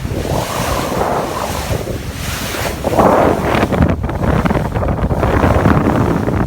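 Sea waves washing with wind buffeting the microphone, the rush swelling louder about three seconds in.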